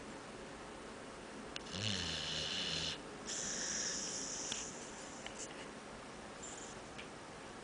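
Dog snoring: one snore about two seconds in, lasting about a second, followed by a hissing breath, then softer breathing.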